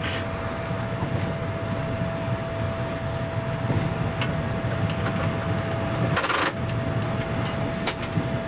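Ferkeltaxe railbus running along a branch line, heard from inside the cab: a steady low diesel drone and rolling rumble, with a few sharp clicks and a short louder clatter about six seconds in.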